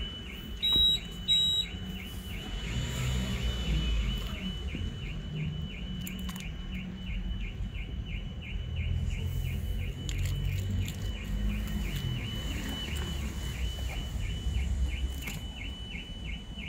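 Street ambience: a low traffic rumble under a steady high chirp that repeats about three times a second without a break. Two short, loud, high beeps come about a second in.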